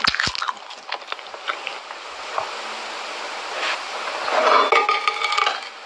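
Sharp knocks and clicks, then a longer, denser scraping noise with a faint squeal about four and a half seconds in, from a china plate of wet cement mush and small brick pieces being worked by hand.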